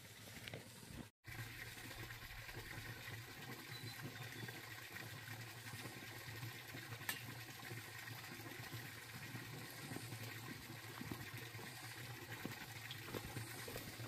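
A small stream running: a faint, steady rush of water, with one light click about seven seconds in.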